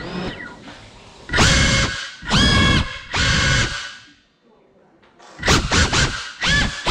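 GEPRC Cinelog 35 cinewhoop's motors and ducted propellers whining in short bursts as the throttle is punched and cut, the pitch rising at the start of each burst. There is a pause of about a second in the middle, then several quick bursts close together near the end.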